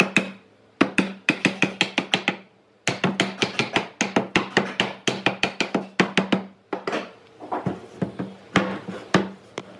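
Rapid knocking on wood, about five or six sharp strikes a second, in bursts broken by short pauses.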